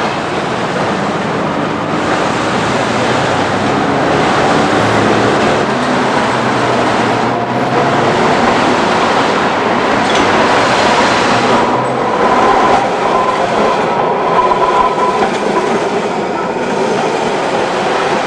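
Electric street tram running along street tracks with surrounding traffic, a steady rolling rumble as it approaches and passes close by. A thin squeal from the wheels sounds for a few seconds in the middle.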